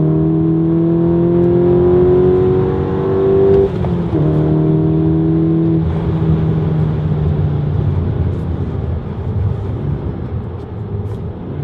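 Skoda Octavia RS 2.0 TSI turbocharged four-cylinder breathing through a Supersprint cat-back exhaust, heard from inside the cabin as the car accelerates through the gears. The engine note climbs steadily, drops with an upshift about three and a half seconds in, then climbs again. After about six seconds the note turns rougher and less distinct and eases a little quieter toward the end.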